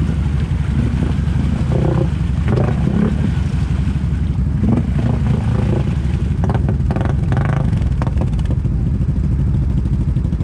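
Quad ATV engine running steadily under load as it churns through a deep mud hole, with irregular splashing and slapping of mud and water from the tyres.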